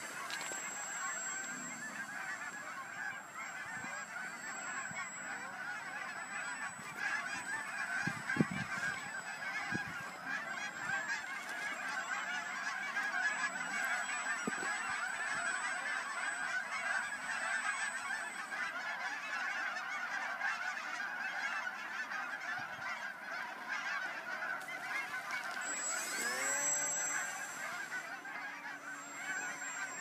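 A large flock of geese honking continuously, a dense jumble of calls. About 26 seconds in, the electric motor of a radio-control seaplane rises in pitch to a steady whine as the model takes off from the water.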